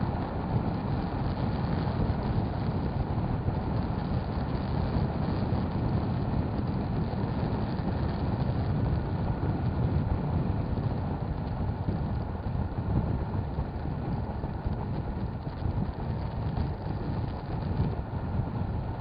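Motorcycle being ridden: engine running steadily under wind and road noise, with no clear revving or gear changes.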